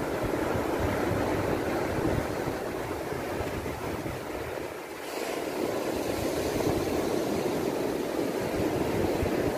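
Surf breaking and washing up the beach, a steady rushing noise, with wind buffeting the microphone. It dips briefly about halfway through, then comes back with more hiss.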